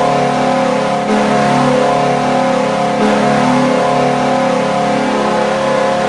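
SaiPa's ice hockey goal horn sounding one long, steady, loud blast of stacked tones.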